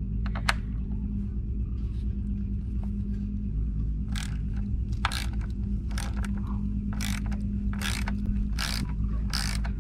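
Hand ratcheting driver clicking in short strokes, roughly one a second, as T30 Torx screws are backed out of the trike's rear light housing, over a steady low hum.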